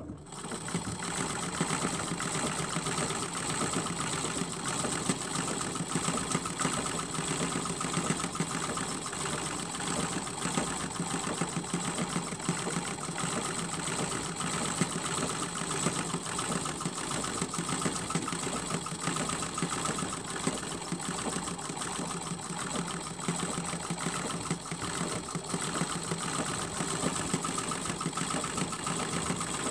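Sewing machine starting up right at the beginning and then running at a steady speed, stitching through a quilt, with a steady motor whine.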